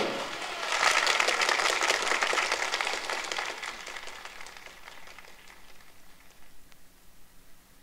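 Live audience applauding as a big-band song ends; the clapping builds within the first second and then fades away over the next few seconds.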